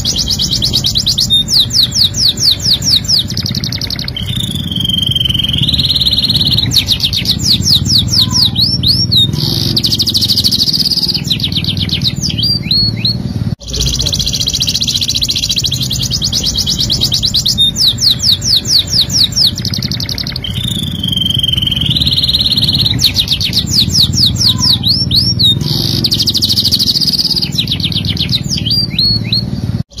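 Domestic canary singing a long, fast song of rapid trills and rolls, with a drawn-out rising whistle about five seconds in. After a brief drop-out about halfway through, the same stretch of song plays over again.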